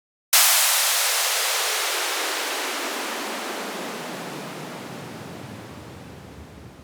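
Downlifter sound effect: a burst of white noise that starts suddenly and slides down in pitch as it fades out over about six seconds.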